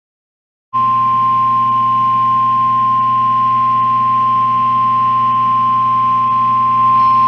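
NOAA Weather Radio warning alarm tone: a single steady 1050 Hz tone that starts suddenly after a moment of silence, heralding a tornado warning. A low hum from the radio feed lies under it.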